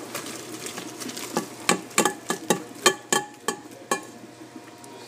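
A cooking pot of boiled shrimp and hot water being dumped out into a kitchen sink. About a second and a half in, a quick run of about ten sharp clattering knocks follows, lasting a couple of seconds.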